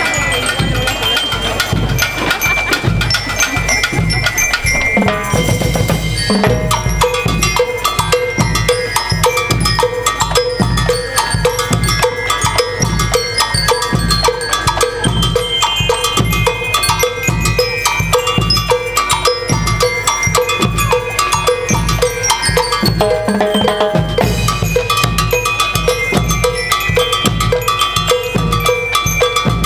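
School marching band (banda de guerra) playing: bass drum and snare drums keep a steady march beat under a repeated melody from bugle-type horns.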